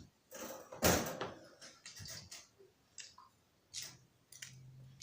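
Plastic Lego pieces being handled: a rustling clatter about a second in, then scattered light clicks and taps.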